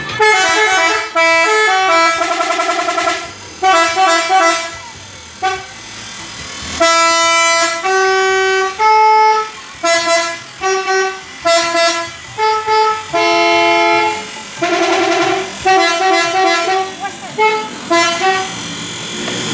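Telolet multi-tone musical horn on a Toyota Fortuner playing a tune. It runs through held notes at changing pitches and quick warbling trills, with short breaks between phrases.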